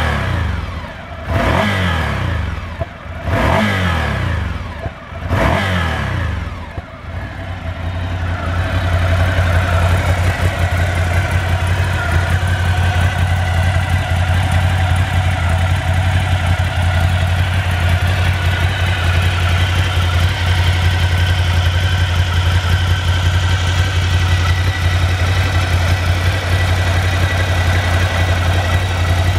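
Ducati Monster 797's air-cooled 803 cc L-twin engine revved in neutral, about four quick throttle blips roughly two seconds apart, each rising and falling back. It then settles to a steady idle.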